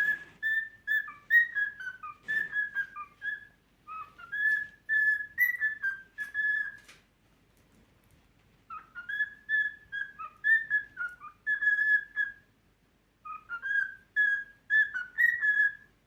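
Cockatiel whistling a learned tune: clear, pure notes stepping up and down, in three phrases with short pauses between them.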